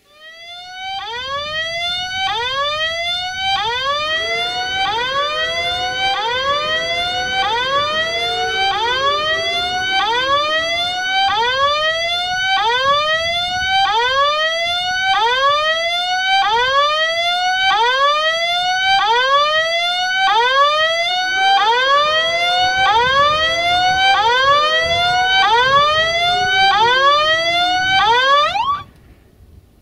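Electronic level-crossing warning sounder giving a repeating rising whoop, a little more than once a second, as the crossing's lights flash and the barriers lower for an approaching train. It cuts off suddenly near the end.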